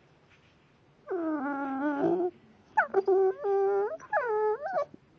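Blue Staffordshire bull terrier puppy making drawn-out, whining vocal noises: three long calls in a row, the middle one broken into short pieces.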